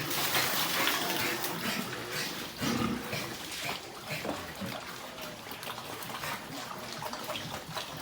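Pigs grunting over a steady splash and rush of running water.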